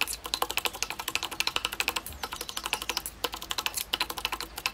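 Wooden pestle pounding a thick, wet fish-and-krachai curry paste in an earthenware mortar (Thai krok): quick, even knocks, several strokes a second.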